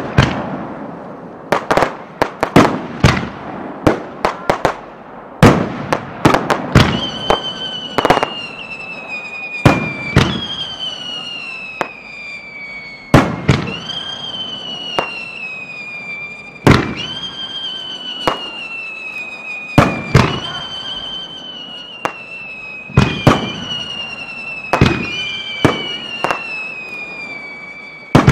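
Fireworks shells launching and bursting at close range: a rapid series of sharp bangs. From about seven seconds in, a shrill whistle comes in with each big bang, roughly every three seconds, and slides slowly down in pitch until the next one.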